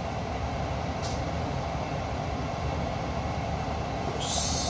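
A steady low rumble from a large pot of coconut-milk fish-head stew simmering on an electric stove. Near the end there is a short high hiss as vinegar is poured from a white bottle into the pot.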